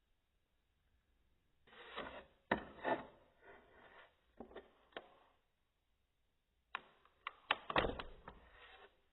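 Hard plastic parts being handled: sharp clicks and knocks with rubbing, in two bursts of a few seconds each separated by a quiet pause.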